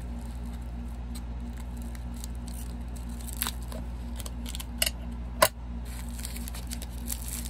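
Rustling of wrapping and a few sharp clicks and taps as a crystal specimen is unwrapped and handled, the loudest click about five and a half seconds in, over a steady low hum.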